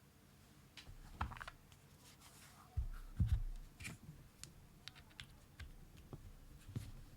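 Fuji65 mechanical keyboard with Gateron Cap Milky Yellow switches: a handful of scattered, irregular key presses and clicks rather than steady typing. There are a couple of louder low thumps about three seconds in.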